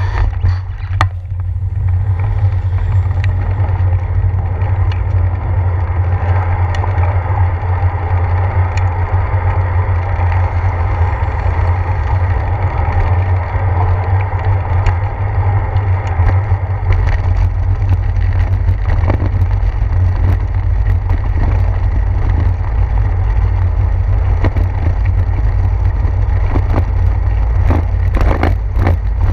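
Riding noise from a bicycle picked up by its handlebar-mounted GoPro: a heavy low rumble of wind and vibration on the microphone over the steady hiss of tyres on wet pavement. In the later part, scattered knocks and rattles as the bike rolls over brick pavers.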